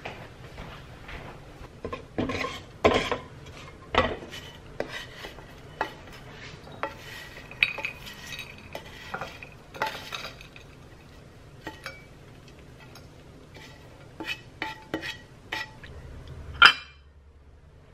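Kitchen clatter of cookware and china: a nonstick frying pan and utensil knocking and scraping as gnocchi are tipped out into a porcelain bowl, with irregular clinks of dishes being handled. One sharp clink near the end is the loudest.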